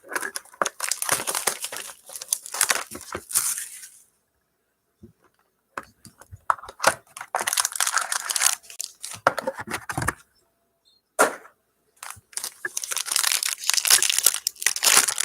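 Trading card box packaging being torn open: wrapper and cardboard tearing and crinkling in three spells with short pauses between, and a single sharp click in the second pause.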